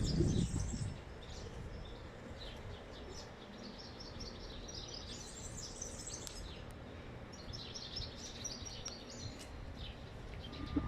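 Small birds chirping and twittering in repeated short calls, over the low rumble of wind buffeting the microphone. The wind swells in the first second and again near the end.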